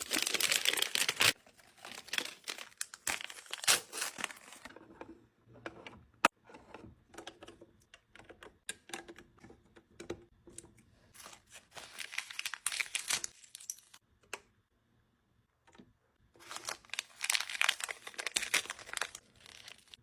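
Plastic packaging being crinkled and torn open by hand, in several bursts of crackling with quieter handling and small clicks between.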